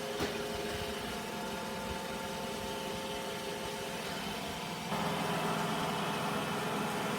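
iRobot Roomba j7+ robot vacuum running: a steady motor hum with a few steady tones. About five seconds in it steps up, louder and hissier.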